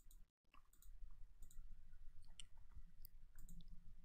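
Faint computer mouse clicks, scattered and light, over a low steady hum. The sound drops out completely for a moment just after the start.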